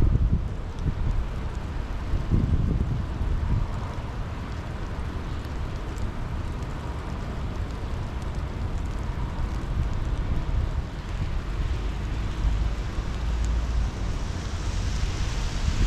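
Steady rain falling, with gusts of wind buffeting the microphone.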